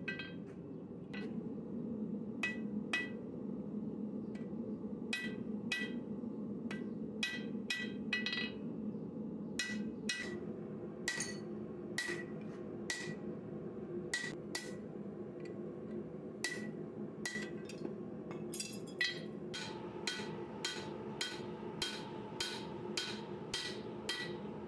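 Hand hammer striking a hot steel knife blade on an anvil to forge its bevels: sharp blows at an uneven pace of about one to two a second, each with a short metallic ring, over a steady low drone.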